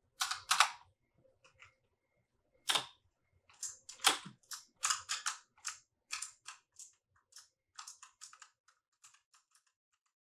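Irregular sharp clicks and pops. A few loud ones come in the first few seconds, then many smaller ones follow at uneven spacing.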